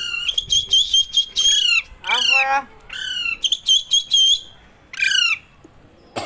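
Green parrot squawking: a rapid series of harsh, pitched calls, each dropping in pitch, with two brief pauses.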